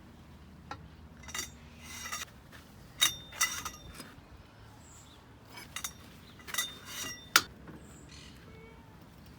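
Metal hand tools being handled: a scattered series of sharp clinks and clanks, some ringing briefly, the loudest about a third of the way through and another late on.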